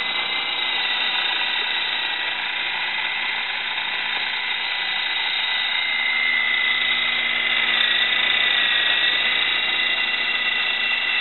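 Lama V3 electric RC coaxial helicopter in flight: the steady high whine of its electric motors and twin rotors, growing a little louder for a few seconds past the middle as it passes close overhead.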